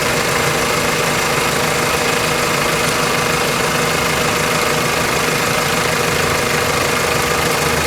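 2001 Toyota Corolla's four-cylinder engine idling steadily under the open hood.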